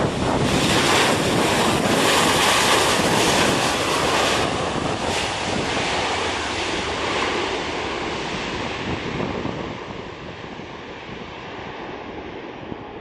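Jet noise of a Skymark Boeing 737-800 landing: a loud rush with a faint steady whine, loudest in the first few seconds and then slowly fading as the airliner moves away. Strong wind buffets the microphone throughout.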